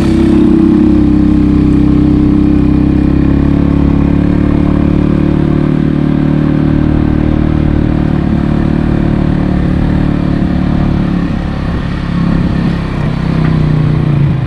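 Motorcycle engine running steadily under way, heard from the rider's seat. About twelve seconds in it eases off and wavers, then picks up again near the end.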